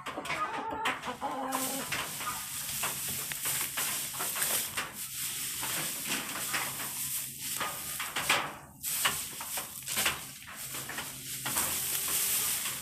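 Chickens clucking over a steady dry rustling hiss of chopped straw being shaken out and spread across a muddy coop floor.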